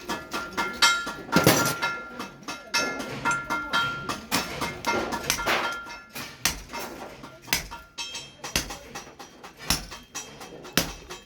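Hand hammer striking steel on an anvil in irregular blows, several a second, the metal ringing after many of the strikes.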